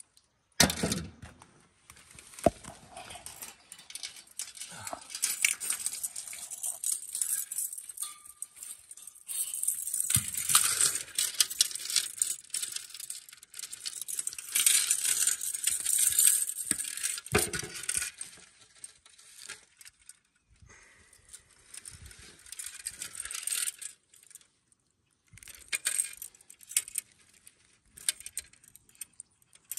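Fishing gear being handled: rustling from clothing and a bag, broken up by light metallic clinks. The sounds come and go, with a couple of short quiet gaps.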